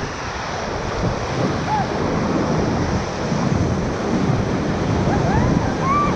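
Whitewater rushing and splashing around a river raft, with wind buffeting the microphone. A few brief faint voices call out, about two seconds in and near the end.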